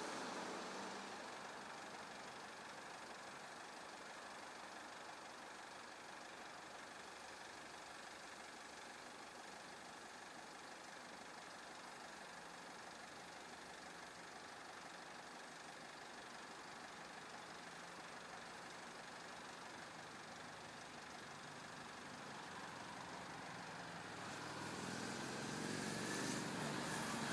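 Faint, steady hum of a small van's engine idling. A louder rumble with a slightly rising whine builds over the last few seconds.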